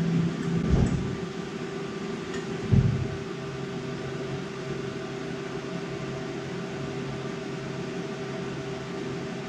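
Steady hum of a Tormach 1100MX CNC mill as it references its X axis, with a single thump about three seconds in.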